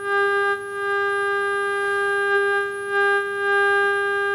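A steady, buzzy mid-pitched test tone from a valve television's loudspeaker, fed by the pattern generator. It wavers a little in level around half a second and three seconds in. A faint, thin high whistle from the set's line timebase runs underneath.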